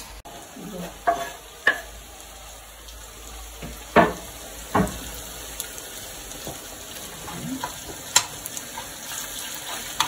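Food sizzling steadily in a pan, with several separate sharp clinks of metal utensils and cookware, a few of them ringing briefly.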